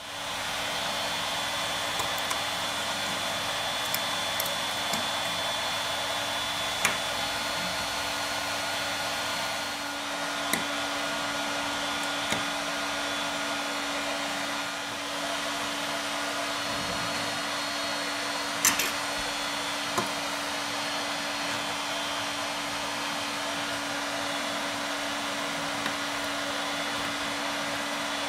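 A steady blowing machine noise with a constant low hum, like a running fan or blower. Over it come a handful of short, light clicks and taps as a small screwdriver works on an iPhone 6's aluminium rear housing.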